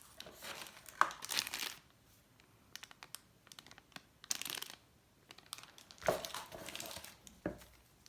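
Motherboard packaging being handled and unwrapped, rustling in several short irregular bursts with light clicks in between.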